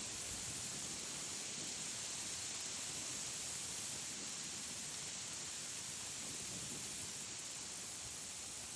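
Steady hiss, brightest in the higher range, with no distinct calls or knocks standing out.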